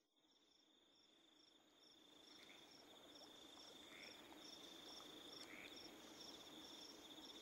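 Faint night insect chorus fading in: crickets chirping about twice a second over a steady high trill, with a few soft higher chirps mixed in.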